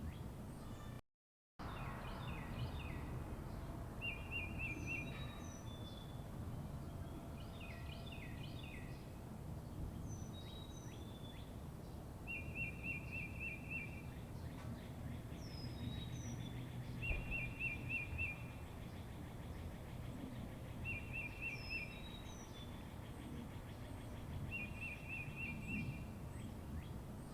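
Songbirds chirping: a rapid trill repeats every few seconds, with short, high, downward-sweeping chirps between, over a steady low outdoor rumble. The sound drops out for about half a second about a second in.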